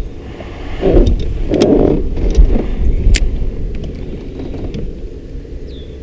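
Wind buffeting the microphone, a steady low rumble that swells twice about a second in, with a few sharp clicks scattered through it.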